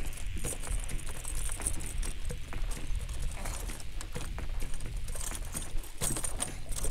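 Irregular light knocks and rattles against a plastic kayak, over a low rumble of wind on the microphone.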